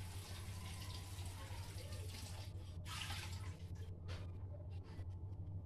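Afritada stew simmering in a covered stainless steel pot on a gas burner: a steady watery hiss of bubbling for the first couple of seconds, then a few short bubbling bursts, over a low steady hum.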